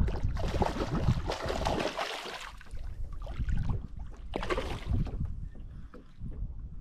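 Hooked trout thrashing and splashing at the water's surface in two bursts, a longer one near the start and a short one about four and a half seconds in, over a low rumble.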